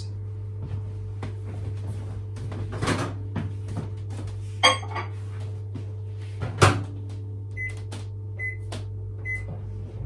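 Panasonic microwave oven being loaded and set: sharp clicks and a clunk as the mug goes in and the door shuts, then three short high keypad beeps near the end as the heating time is entered. A steady low hum runs underneath.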